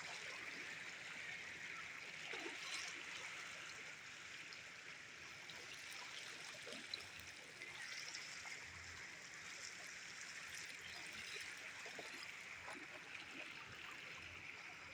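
Floodwater flowing steadily past, a faint even rush of running water with a few small ticks.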